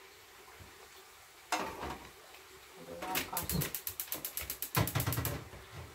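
A single knock, then a rapid, even run of ratchet-like mechanical clicks, about ten a second for roughly two seconds.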